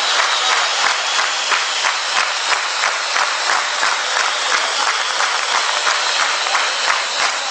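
Crowd applauding, a dense, steady mass of hand claps.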